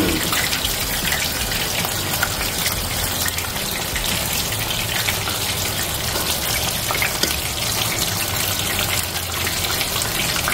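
Batter-coated shrimp frying in a skillet of hot oil: a steady, dense crackling sizzle.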